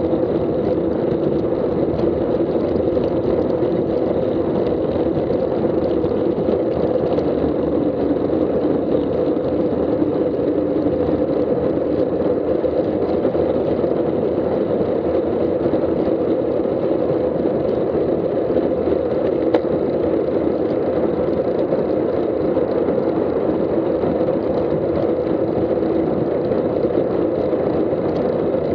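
Steady rush of wind and road noise on a bicycle-mounted action camera's microphone while riding at about 20 mph, unchanging throughout.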